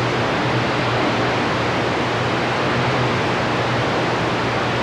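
CB radio receiver hiss: steady open-squelch static on the 11-metre band between transmissions, with a faint low hum under it.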